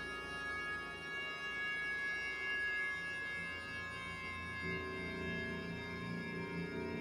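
Violin bowing long, steady held notes over a chord of other sustained tones. A lower held note comes in about two-thirds of the way through.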